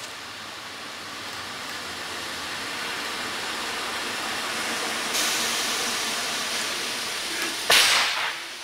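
ČD class 242 electric locomotive running light past at close range: a steady rushing noise of wheels on rails that grows as it approaches, louder from about five seconds in as it draws level. A sudden loud burst near the end.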